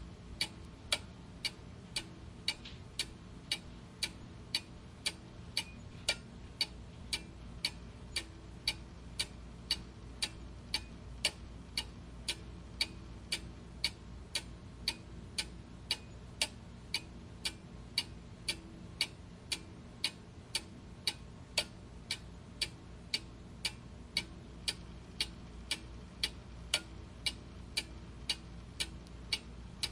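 Clock ticking steadily, a sharp tick-tock at about two ticks a second, over a faint steady low hum.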